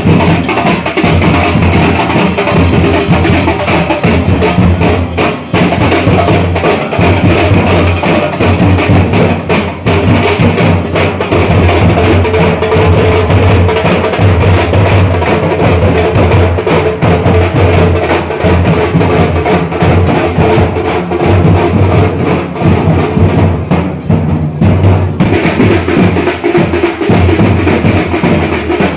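Loud, dense drumming from a percussion ensemble, the strokes running on without a break.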